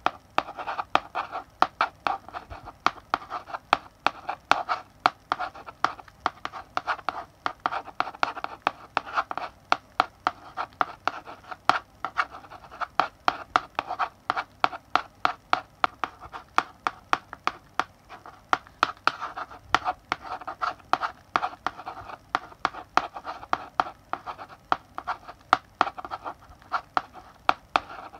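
Chalk writing on a blackboard: a steady run of scratchy strokes with sharp taps where the chalk meets the board, several a second.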